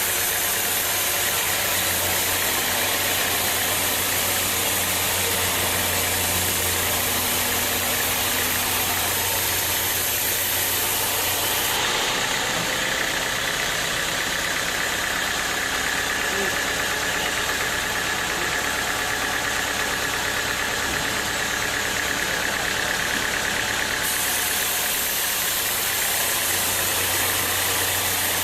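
Sawmill machinery running: a steady engine-like drone with a high hiss, its tone shifting abruptly twice.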